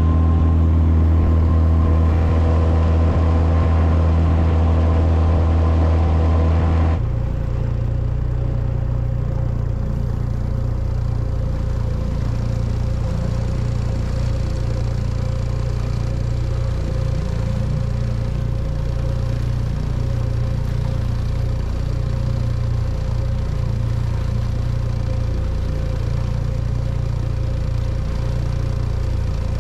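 Boat outboard motor running steadily. About seven seconds in the sound drops suddenly to a quieter, steady engine hum that carries on.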